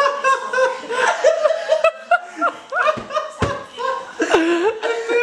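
A group of people laughing hard together, several voices overlapping in fits of giggles and chuckles. About three seconds in there are two short knocks.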